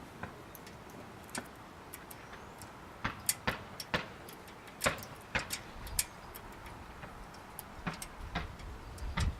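Lock picks and tension tool working inside an old, grit-filled bicycle fork lock: irregular small metal clicks and ticks, coming in little clusters about three seconds in, about five seconds in and again near the end.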